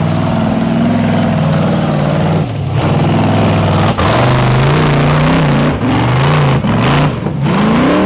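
Rock bouncer's engine running at high revs, then revved up and down over and over, with several brief throttle lifts in the second half.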